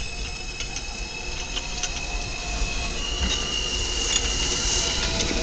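Subway train pulling into the station: a high steady squeal over a low rumble, with scattered sharp clicks, growing louder as it arrives; a second, higher squeal tone joins about three seconds in.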